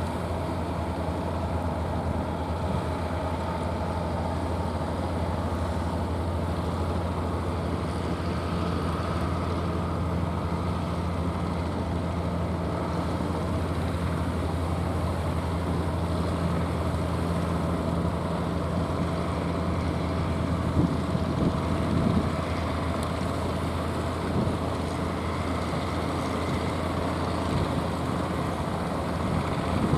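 Boat engine running steadily, a low drone with a constant hum. A few brief gusts of wind on the microphone come about two-thirds of the way through.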